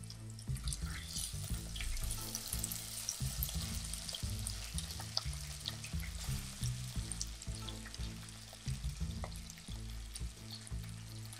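Raw chicken pieces sizzling and crackling in hot mustard oil with fried onions, turned now and then with a wooden spatula. Background music with a steady bass line plays underneath.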